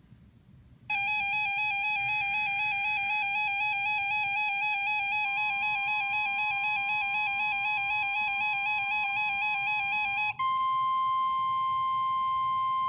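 A rapidly warbling electronic tone sequence, ringtone-like, starts about a second in. About ten seconds in it gives way to a steady single-pitch tone near 1 kHz: the NOAA Weather Radio 1050 Hz warning alarm tone that signals an alert is about to be read.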